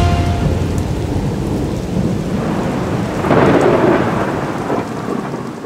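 Thunder rumbling over steady rain, swelling to its loudest a little past halfway, then fading out.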